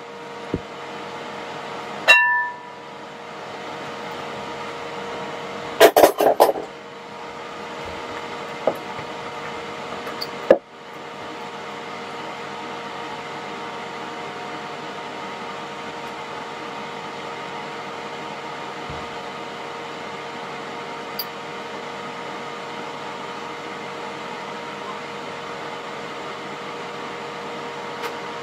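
Metal tongs knocking against a glass mixing bowl while coating cauliflower florets in batter: a ringing clink about two seconds in, a quick cluster of knocks around six seconds, and one more near ten seconds. Under it a steady electrical hum.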